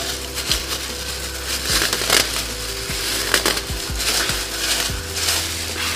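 Thin disposable plastic gloves crinkling and rustling as they are pulled onto the hands, with irregular sharp crackles.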